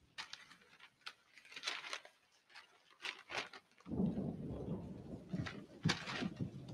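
Newspaper rustling as it is handled and unfolded: a run of short crisp rustles. About four seconds in, a low rumbling noise comes in under it.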